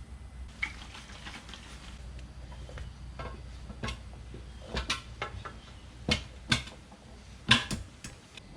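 Scattered sharp metallic clicks and knocks of hand tools against the motorcycle wheel during a tire change, the loudest a little past seven seconds in, over a low steady hum.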